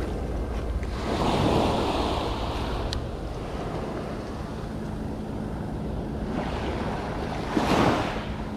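Sea waves washing on the shore, swelling about a second in and again near the end, with wind noise on the microphone. A single small click about three seconds in.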